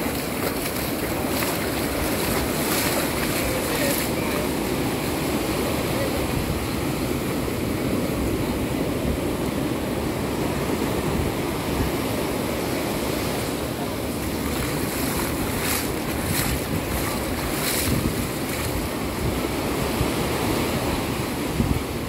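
Ocean surf breaking and washing up on a sandy beach in a steady roar, with wind rushing over the microphone in a few brief gusts.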